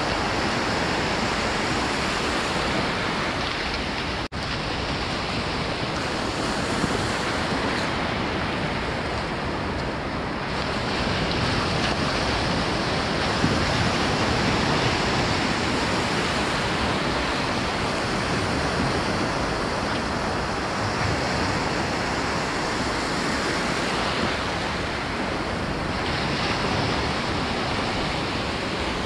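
Ocean surf breaking and washing in around the wader, a steady rush.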